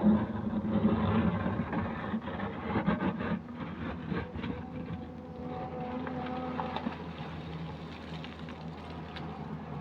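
JCB 3DX backhoe loader's diesel engine running steadily, with a series of knocks and clanks over the first few seconds that then give way to an even engine hum.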